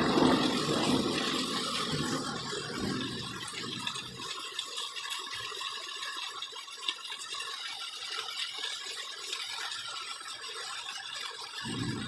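Steady hiss of heavy monsoon rain falling outside, with a low rumble that fades away over the first few seconds.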